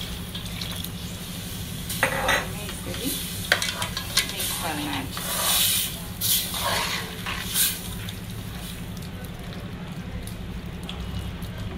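Steel spoon stirring and scraping through a thick milk-and-flour mixture in an aluminium pot on a gas stove, as milk is worked into the fried flour and vegetables. The scraping strokes come mostly in the middle and die down near the end, over a steady low hum.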